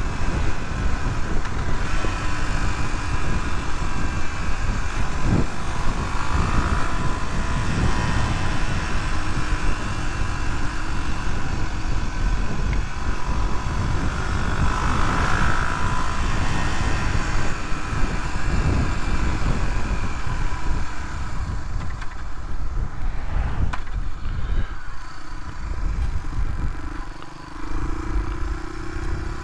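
Suzuki DR250S single-cylinder trail bike being ridden along, its engine running steadily under a dense rush of wind and road noise. Near the end the noise drops briefly, then the engine note rises as it picks up speed again.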